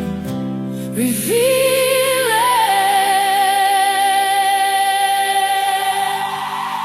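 Worship song: a woman sings one word about a second in and holds the last note with vibrato, over sustained backing chords.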